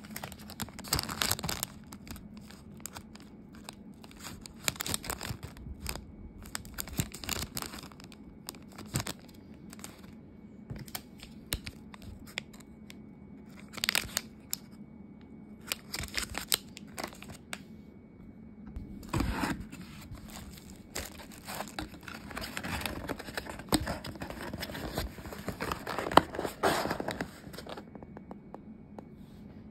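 Paper and wrapping handled by hand: rustling and crinkling in short bursts every second or two, then a longer spell of nearly continuous rustling about two-thirds of the way through.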